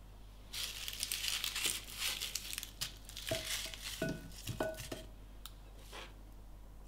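Dry rustling of papery shallot skins as the halved shallots are gathered by hand, then three light clinks, each with a short ring, as shallot pieces are dropped into a ceramic bowl, followed by a little more rustling.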